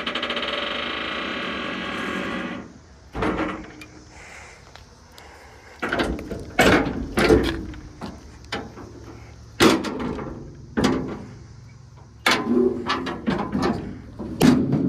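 Maxon TE-25L tuckunder lift gate: its hydraulic power unit runs steadily for about two and a half seconds. Then comes a series of loud metal clanks and bangs as the folded steel platform is pulled out and flipped open onto the ground.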